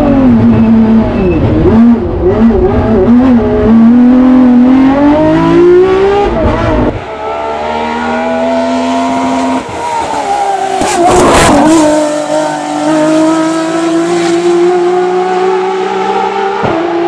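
Race engine of a BMW S38-swapped Ford Escort Mk2, a de-stroked 3.3-litre naturally aspirated inline-six that revs to about 10,500 rpm. For the first several seconds it is heard from inside the car, the revs rising and falling through shifts and then climbing hard. After that it is heard from the roadside: the car goes past close by about eleven seconds in, the pitch dropping as it passes, then holds a steady high note as it drives away.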